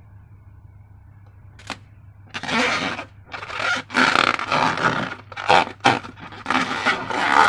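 Slime being handled and worked, making irregular squishing and scraping sounds that start about two seconds in, after a single click.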